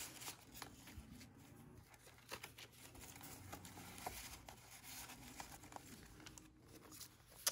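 Faint rustling and light scraping of paper and cardstock as tags and pocket flaps of a handmade paper journal are handled and tucked in, with a few soft ticks.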